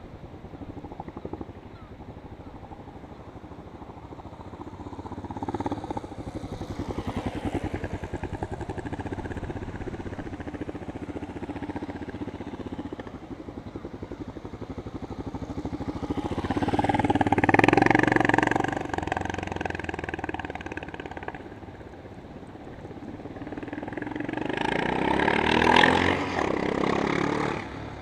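Yamaha SRX 600 single-cylinder four-stroke motorcycle engine running through short sprints. It swells three times, loudest about 17 and 26 seconds in, each time rising and then falling away, and drops off sharply near the end.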